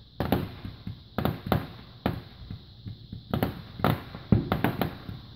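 Consumer fireworks going off: a rapid, irregular string of sharp bangs and pops, several a second, some trailing a short echo.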